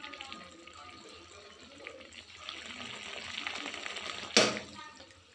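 Fish curry simmering in a steel kadai, a bubbling hiss that grows louder over a couple of seconds. A single sharp click comes about four seconds in, and the sound quietens after it.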